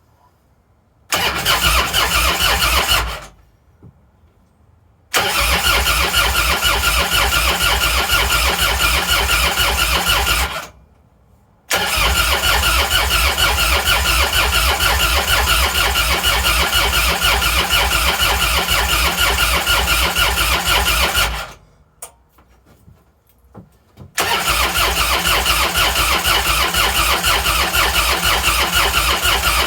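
Old Harley-Davidson motorcycle's electric starter cranking the engine in four tries, a short one and then three longer ones, with pauses between them. The engine does not catch: it is a no-start despite a new battery, new plugs and new wires.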